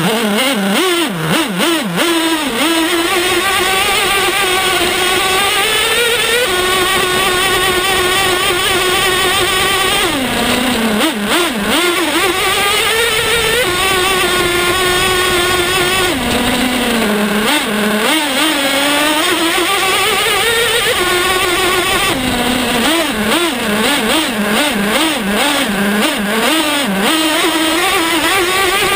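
Traxxas T-Maxx nitro RC truck's small two-stroke glow engine, heard from a camera riding on the truck. It revs up and down again and again, with stretches held at high revs while the truck drives.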